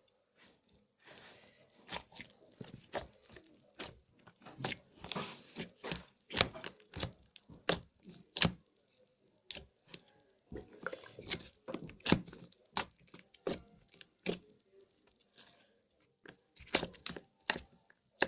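Slime being squeezed and poked by hand, making irregular sharp wet clicks and pops in clusters, with short pauses near the middle and about three-quarters through.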